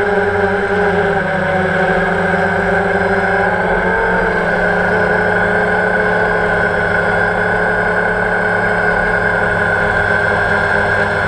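Electric motors and propellers of a camera drone, heard from the drone itself: a steady whine of several tones that shift in pitch between about one and four seconds in as the motors change speed, then hold level.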